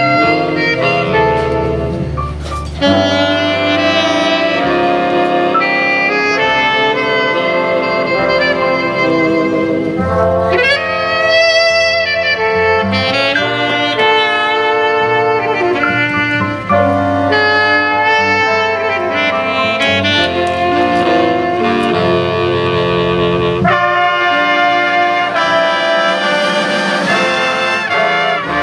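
Jazz big band playing live: a saxophone section and brass (trombones and trumpets) over upright bass.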